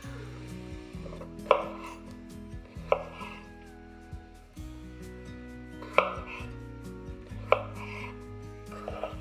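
A kitchen knife cuts through peeled raw potatoes and knocks on a bamboo cutting board: single sharp chops about every second and a half.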